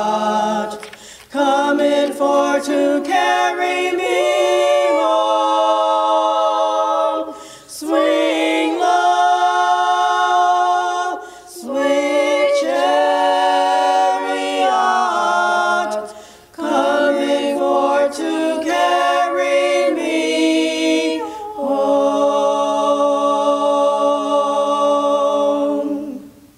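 Small ensemble of women singing a cappella in harmony, phrase by phrase with short breaths between. They close on a long held chord that dies away at the end.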